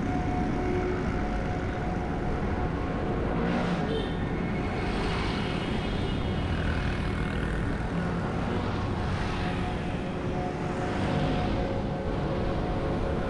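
Street traffic heard from a moving bicycle: a steady wind rumble on the microphone, with motor vehicles passing several times.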